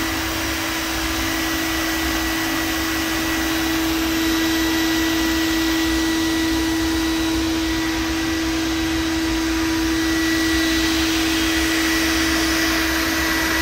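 Blower on a homemade waste-oil furnace running steadily, forcing air into the burning burn pot. It makes an even rushing whir with a constant hum over it.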